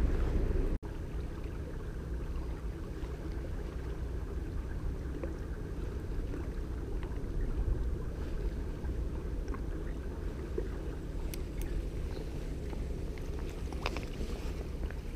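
Steady low rumble of wind on the microphone and river water at the bank, with a faint steady hum; the rumble drops suddenly under a second in. Near the end there are a few light clicks as the spinning rod and reel are worked.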